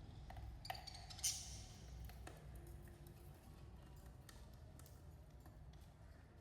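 Budgies, faint: two short, sharp chirps about a second in, then scattered soft clicks and ticks over a low steady hum.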